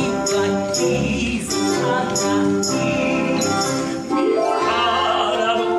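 Musical-theatre song performed live by a singing ensemble over a backing track, with held notes and a steady percussion beat; about four seconds in the voices swell with a rising glide.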